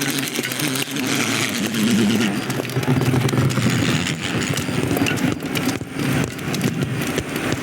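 Dense, busy sound-design bed for a city of bugs in an animated film: many small clicks and clatters over a steady low hum of mixed background activity.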